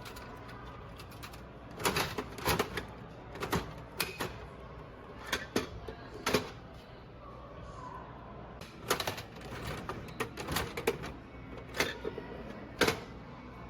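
About a dozen sharp, irregularly spaced clicks and clacks, some in quick pairs, as gacha capsules are handled.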